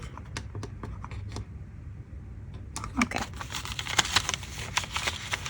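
Scrapbook paper and die cuts being handled: light rustling and clicking, sparse at first and busier from about three seconds in.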